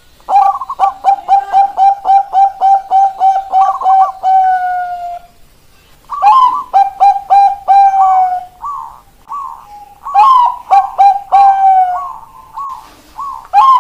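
Bangkok-type zebra dove (perkutut) song: fast runs of short, clipped coos, each run closing on a longer held note, repeated in several phrases, with a pause of about a second around five seconds in and softer single notes between the later phrases.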